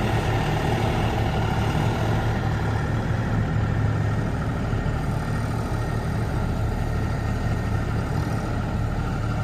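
John Deere 5075E tractor's diesel engine running steadily with a low, even hum while its front loader sets a round hay bale onto a flatbed trailer.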